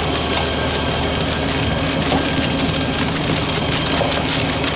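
eep ZSH 30 cylinder screw chipper running steadily under load, chipping sawmill offcuts: a loud, even drive hum under a dense crackle of coarse wood chips being thrown out onto the pile.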